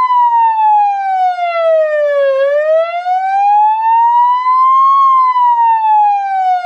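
Recorded ambulance siren sounding a slow wail. Its pitch slides down, back up, and down again, each sweep taking about two and a half seconds.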